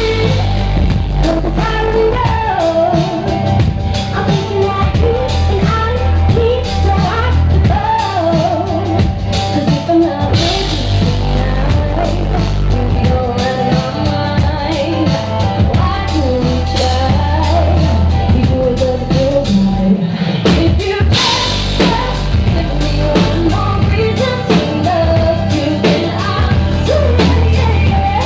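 Live pop-rock band: a woman sings a melody into a handheld microphone over a drum kit, keyboards and a heavy low end, loud and steady. The band drops out for a moment about two-thirds of the way through, then comes back in.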